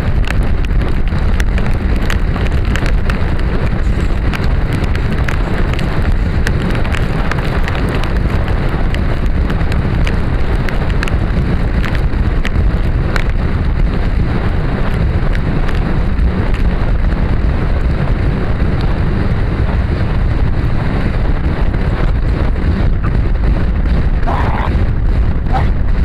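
Wind blasting across a jockey's helmet camera as a racehorse gallops flat out on a dirt track, with a constant patter of sharp clicks from flying dirt and the gallop.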